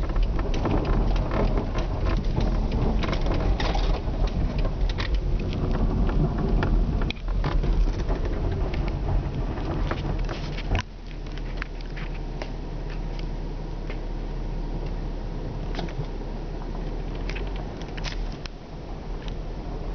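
Car driving on an ice- and snow-covered street, heard from inside the cabin: a steady low rumble of engine and tyres with scattered sharp clicks and crackles. The rumble drops suddenly about halfway through and stays quieter after.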